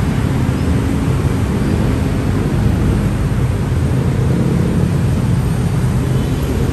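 Steady rumble of dense city road traffic, cars, trucks and motorcycles, heard from a footbridge above the road.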